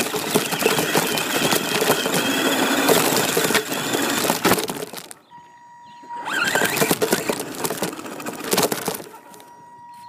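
Radio-controlled car driving over rough ground: rattling, crackling tyre and chassis noise. It stops briefly about five seconds in and again near the end, leaving a steady high tone.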